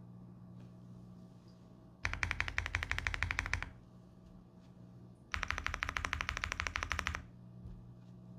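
Owlab MrSuit R1 mechanical keyboard with lubed Gazzew Boba U4T tactile switches, a polycarbonate plate and GMK keycaps, typed on fast in two bursts of rapid, even keystrokes, about two seconds in and again past the middle, with a pause between.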